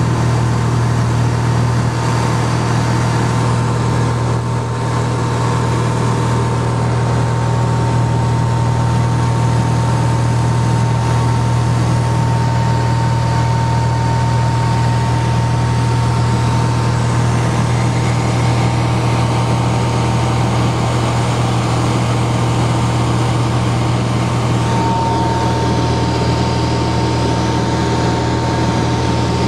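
Cabin noise of a Cessna 182RG in cruise flight: the steady drone of its Lycoming O-540 six-cylinder engine and propeller, with a thin steady high tone running through it.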